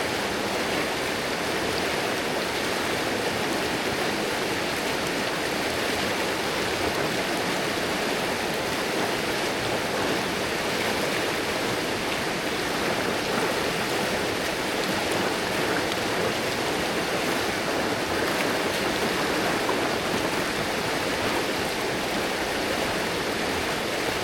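River water rushing and babbling over rocks, a steady, unbroken flow.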